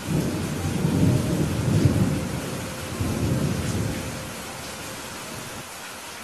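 Steady heavy rain with a low thunder rumble that rolls in at the start, swells about a second and a half in and again around three seconds, then dies away, leaving the rain alone.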